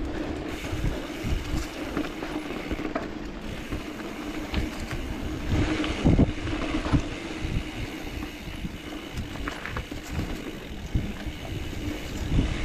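Mountain bike rolling over dirt singletrack: a steady rumble of tyres, with frequent knocks and rattles over bumps and a steady hum underneath. A harder jolt comes about six seconds in.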